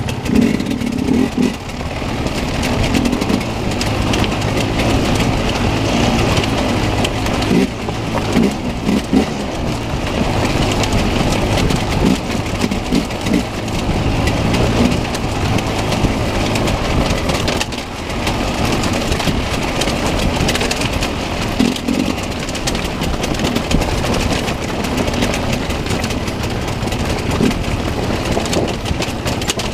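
Enduro dirt bike engine running under throttle while riding over rough rocky ground, the revs rising and falling with a few brief drops off the throttle.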